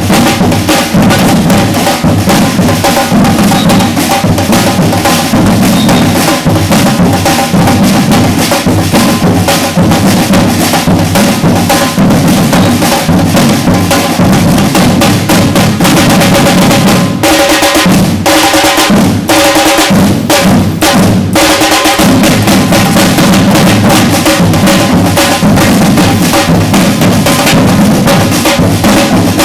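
Batucada drum ensemble playing a loud, dense, driving rhythm. About 17 seconds in, the low drums drop out for a few seconds, leaving only sharp, separate hits, before the full group comes back in.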